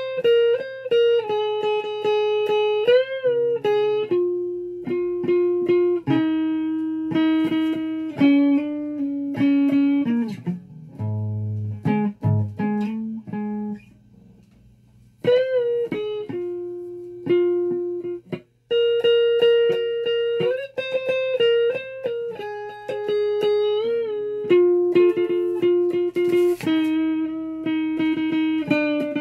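Flying V-style electric guitar played as single picked melody notes, some bent or held with vibrato. It breaks off briefly twice, about halfway through.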